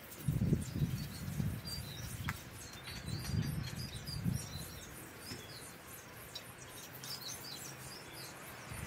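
Small birds chirping repeatedly in the background, high and short. Louder low rumbling bursts come twice, near the start and again about three to four seconds in.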